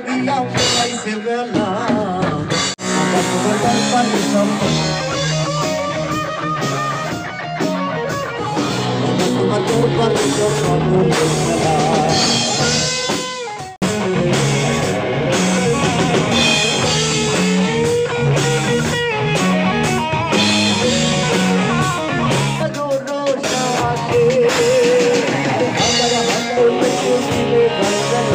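Rock-style music with drums, guitar and a singing voice, cutting out briefly about halfway through.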